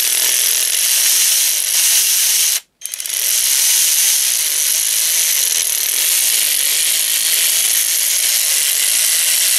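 An 18 V cordless 3/8-inch right-angle electric ratchet wrench running, its motor and gearing whirring steadily. It stops briefly about two and a half seconds in, then starts again and keeps running.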